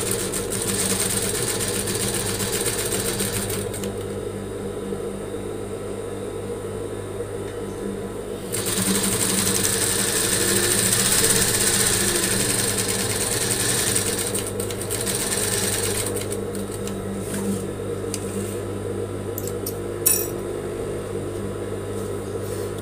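Industrial sewing machine stitching bias binding along a fabric edge, running in spells: about four seconds of stitching, a pause of about five seconds, then a louder run of about six seconds, then quieter, slower work with a sharp click near the end. A steady hum continues underneath.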